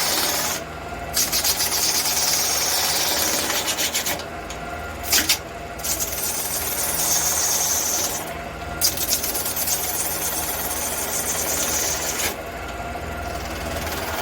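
Wood lathe running with a tool worked against the spinning red cedar blank: a steady motor hum under a rasping hiss of wood being cut or abraded. The hiss breaks off briefly several times as the tool comes off the wood, with a couple of short sharp knocks around the middle.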